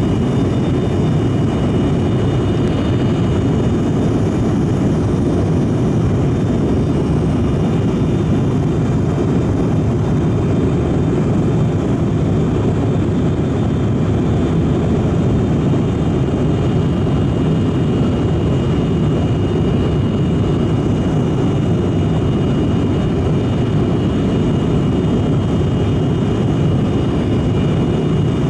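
Cabin noise of an ATR 42-600 twin turboprop in flight, descending toward landing: a steady, unchanging drone from the propellers and engines, with a thin constant whine above it.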